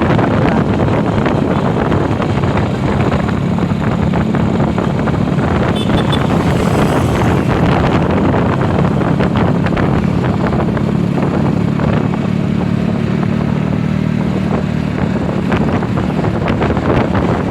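Vehicle engine running steadily with a low hum, with wind noise on the microphone.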